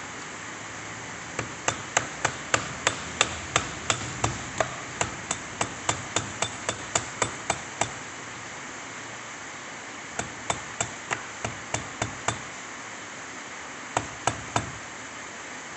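Hand hammer blows, struck at a steady pace of about three a second: a long run of about twenty, a pause, a run of about seven, then three more near the end.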